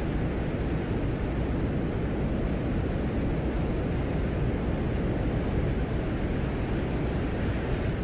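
Microphone recording from the surface of Venus made by a 1982 Soviet Venera lander: a steady low rumbling noise with a fainter hiss above it, without tones or pauses.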